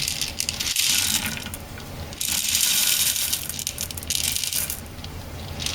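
Unpopped popcorn kernels poured into a microwave popcorn popper: a dense rattling patter of many small hard clicks, surging and easing in a few pours.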